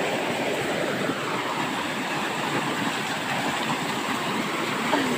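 River water rushing over a rock ledge in a steady, even rush, the current running strong after rain.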